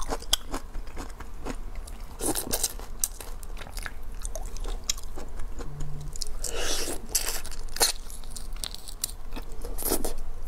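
Close-miked eating of lemon-marinated shrimp: shells crackling and snapping as they are peeled by hand, wet sucking at the mouth a little past halfway and again near the end, and chewing.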